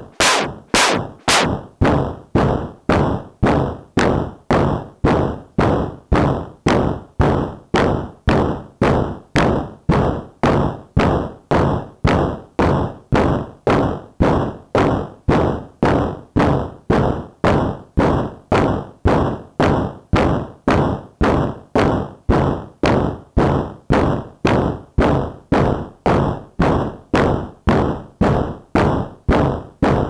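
WMD Kraken Eurorack synthesizer module, a physical-modeling-style voice, struck by a steady clock at about two hits a second, each a sharp thunk that dies away quickly.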